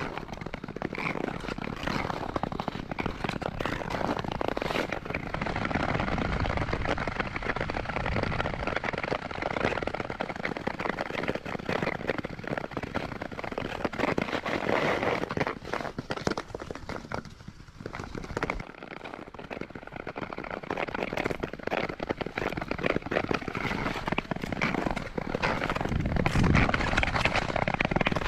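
Nordic touring skates gliding over natural lake ice, the long blades hissing and crackling on the ice surface without a break. The sound dips briefly a little past halfway, then builds again.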